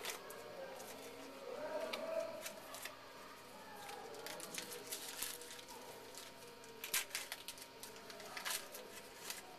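Baseball cards being handled and flipped through by hand: a run of light clicks and papery snaps of card stock, with a few sharper snaps in the second half.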